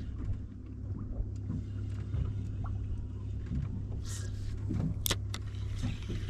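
Steady low hum of the boat's engine running at idle, with light ticks and, about four and five seconds in, short sharp rasps as the spinning reel and rod are worked.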